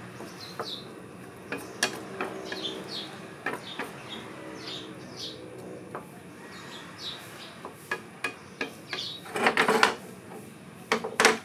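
A utensil stirring diced potatoes in a frying pan: scattered taps and clicks against the pan, with a louder run of scraping near the end. Birds chirp in the background.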